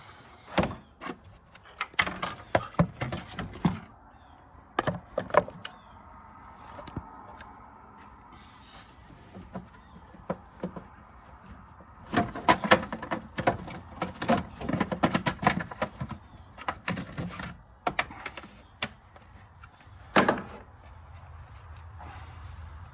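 Irregular clicks, knocks and rattles of hands working on a vehicle's under-hood fuse and relay box, in bursts, with one sharper knock near the end.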